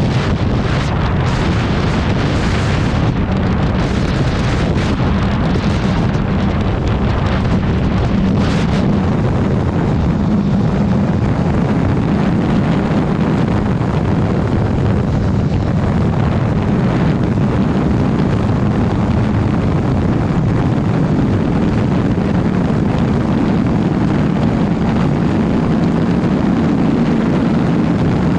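A 2019 Suzuki GSX-R750's inline-four engine running while the bike is ridden, at a fairly steady pace. Wind buffets the microphone, heaviest in roughly the first nine seconds.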